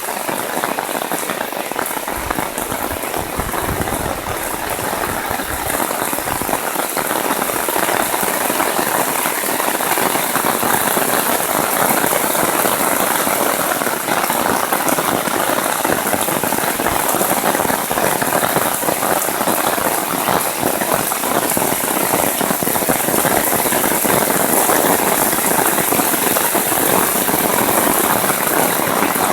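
Heavy downpour: a dense, steady patter of raindrops hitting surfaces, getting a little louder after about eight seconds.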